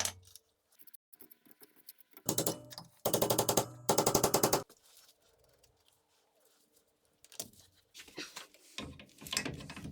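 Three short bursts of rapid, machine-gun-like clicking from a wrench driving bolts tight, with a few faint knocks near the end.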